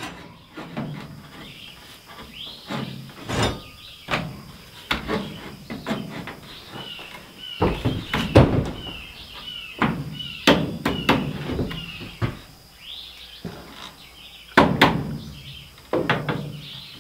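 Irregular wooden knocks and thuds as a pine 2x4 header is shoved and tapped into place overhead in the framing, with a few louder bangs in the second half. A run of short bird chirps in the background in the middle.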